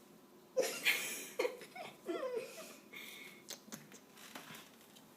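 A person laughing softly in a few short, breathy bursts, followed by a few faint clicks.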